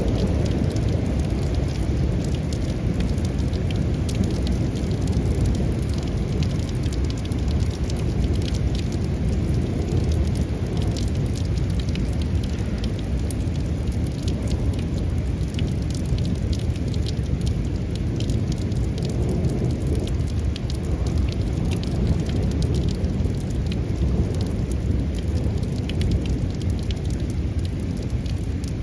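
Heavy rain pouring in a thunderstorm: a dense, steady hiss with a constant low rumble underneath and fine raindrop ticks throughout.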